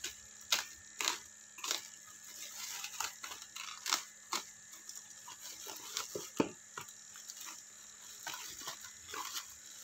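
Utility cutter slicing through bubble wrap and packing tape, the plastic crinkling and rustling under the hands, with irregular sharp crackles.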